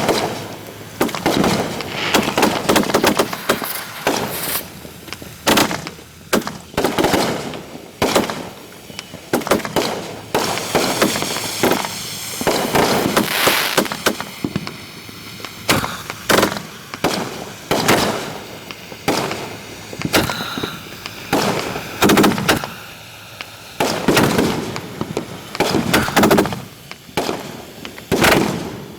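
Fireworks finale heard up close at the firing site: a rapid, continuous barrage of sharp bangs, often several a second, with crackling between them.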